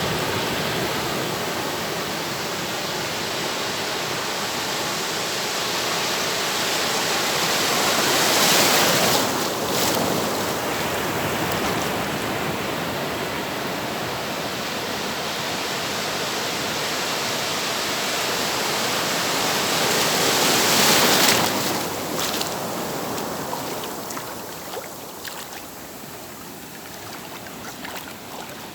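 Ocean surf washing onto a beach: a steady rush of water, with two larger waves swelling up and breaking, one about a third of the way in and one about three quarters in, then easing off.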